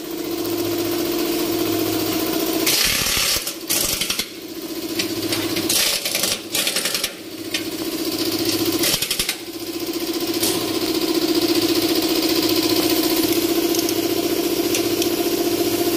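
Impact wrench run in several short bursts on the stabilizer-bar bushing bracket bolts during the first ten seconds, over a steady mechanical hum.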